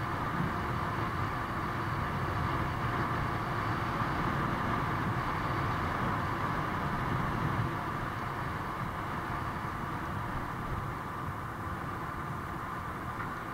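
Steady riding noise on a paved road: tyres rolling and wind rumbling on the microphone, with an even hum and no breaks.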